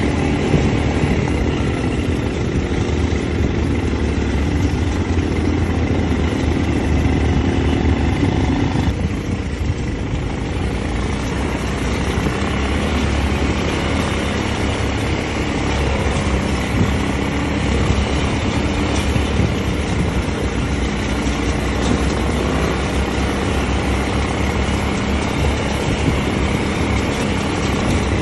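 Quad bike (ATV) engines running steadily while riding, a continuous engine drone. The sound changes abruptly about nine seconds in.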